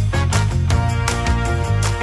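Upbeat background music with a steady beat and a bass line.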